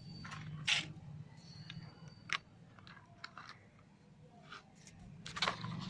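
Crinkling and rustling of firecracker packaging being handled, in a few short crackles over a steady low hum.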